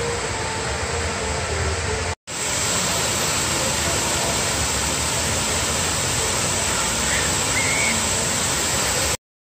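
Rushing, splashing water from large fountain jets spraying high into the air, a steady hiss that drops out for a moment about two seconds in.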